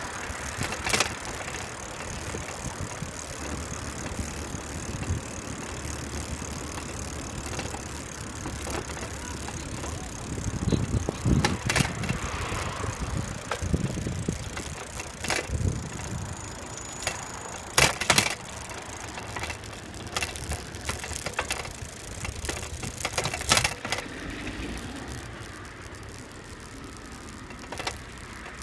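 Riding noise picked up by a camera mounted on a moving bicycle: steady tyre rumble on asphalt and wind, with a few sharp rattling clacks over bumps, the loudest about eighteen and twenty-three seconds in.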